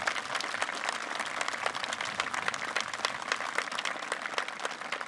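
Audience applauding, many hands clapping steadily as a dense patter of claps.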